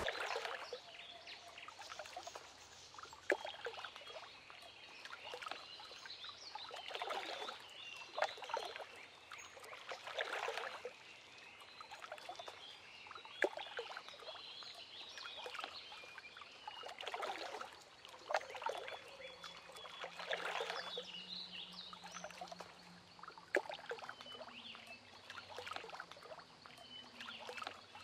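Water sounds coming in irregular swells every second or two, with faint short high chirps between them.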